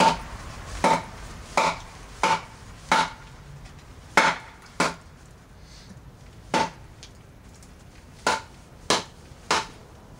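A wooden baton striking the spine of a KA-BAR fighting knife to split wood: about eleven sharp knocks, each with a brief ring, in uneven runs with a pause of over a second in the middle.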